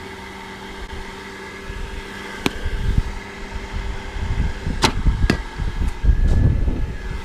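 Batting practice: a few sharp cracks of balls being hit and striking the cage, over the steady hum of a pitching machine and gusty low rumble.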